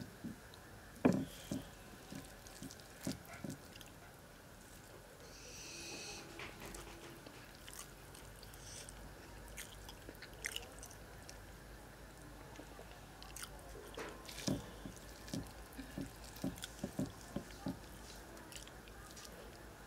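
Close-up eating sounds: fingers squishing and mixing flattened-rice pulao and boal fish on a clay plate, with chewing and mouth smacks heard as scattered soft clicks.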